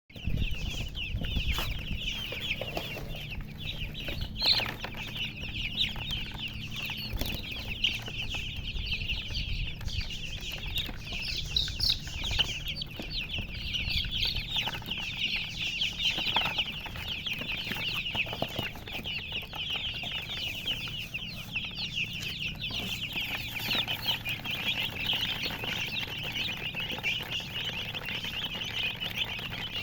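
A brood of baby chicks peeping nonstop, many high chirps overlapping into a dense chorus. A low rumble and a few knocks sit under it in the first half.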